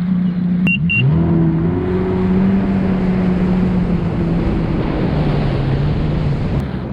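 Jet ski engine running under way with water and wind rushing past; about a second in the engine note rises as it speeds up, then holds steady and eases slightly lower near the end.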